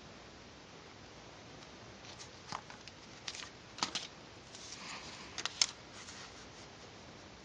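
Craft materials being handled: a few light clicks and a short rustle over a faint steady hiss, the loudest click a little over halfway through.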